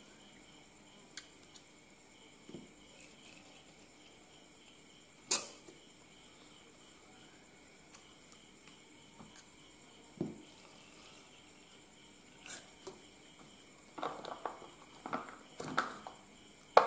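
Quiet, scattered clicks and plastic handling sounds of a plastic syringe drawing distilled water from a plastic cup. A sharp click about five seconds in is the loudest, and a short run of handling noise comes near the end.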